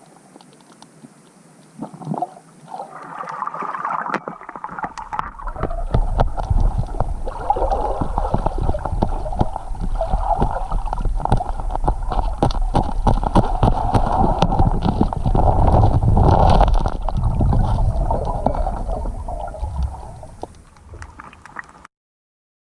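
Water gurgling and sloshing close to the microphone, with a low rumble and a dense crackle. It builds from about two seconds in, is loudest through the middle, fades near the end and then cuts off abruptly.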